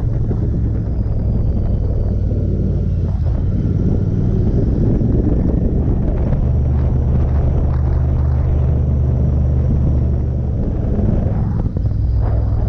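Royal Enfield Interceptor 650's parallel-twin engine running steadily at a cruise, heard from on the bike with road and wind noise, dipping briefly near the end.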